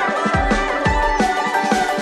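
Background music: a melody over a steady beat.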